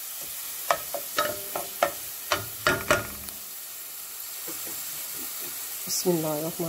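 Sliced onions sizzling in hot oil in a metal pan, fried to light golden brown. A wooden spatula knocks and scrapes against the pan several times in the first three seconds, then the sizzle carries on alone.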